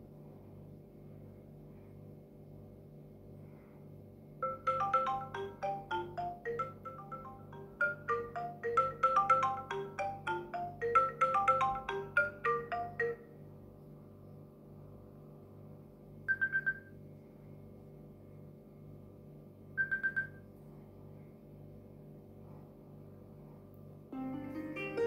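iPhone ringtones: a quick melody of bright struck notes starts about four seconds in and plays for about nine seconds, followed by two short single chimes a few seconds apart. A faint low hum runs underneath, and another tone begins just at the end.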